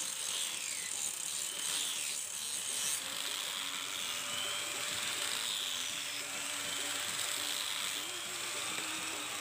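Steady rubbing and scraping of tool work on a golok being shaped.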